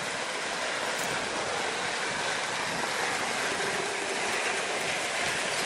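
Sawmill saw cutting through a log, a steady even hiss with no distinct tone or rhythm.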